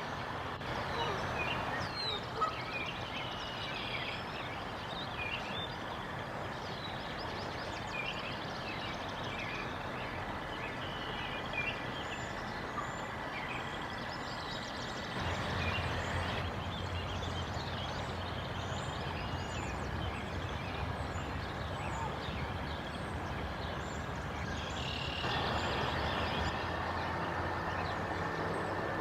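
Morning chorus of small songbirds, many short chirps and trills, over a steady background rush. A low hum joins about halfway through.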